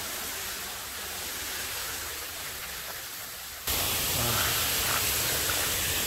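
Steady rushing of water pouring over a stone check dam, an even hiss. About two-thirds of the way through it jumps suddenly to a louder, brighter hiss.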